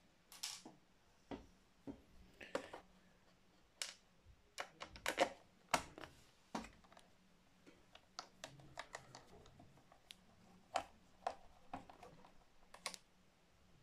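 Scattered small clicks and taps of a screwdriver and screws against a laptop's casing as screws are put back in, irregular, with a quick cluster about five seconds in.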